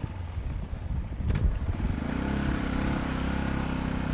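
Yamaha WR125 dirt bike's 125 cc single-cylinder four-stroke engine running as it rides a muddy track: uneven at first, then settling to a steady note about halfway through.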